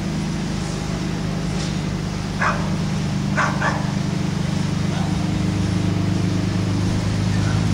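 A steady low mechanical hum, with a dog giving a few short barks about two and a half and three and a half seconds in.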